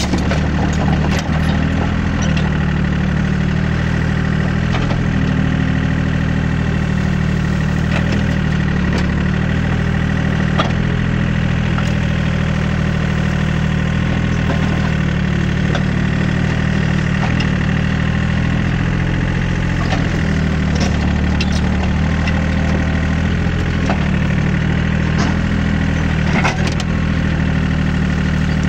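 Hitachi EX30 mini excavator's diesel engine running steadily as the machine works, with scattered sharp clicks and knocks as the bucket rakes through dry grass and brush.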